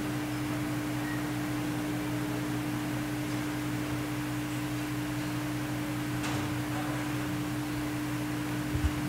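A steady electrical hum: one held tone with fainter lower tones beneath it and a light hiss. Two soft knocks come just before the end.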